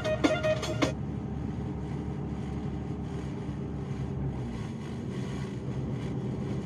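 Steady low rumble of a truck driving, with no clear rhythm, after a run of sharp drum-like hits ends about a second in.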